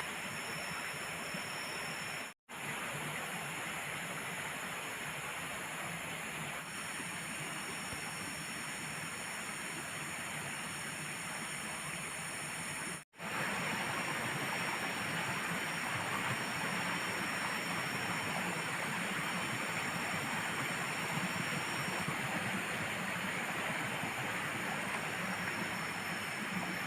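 Steady rushing water of a river and waterfall, cutting out completely twice for a split second.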